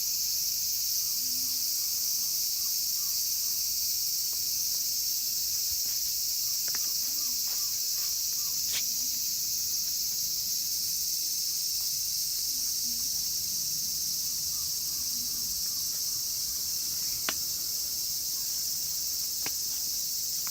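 Cicadas singing in a steady, high-pitched chorus, with a few faint clicks at moments.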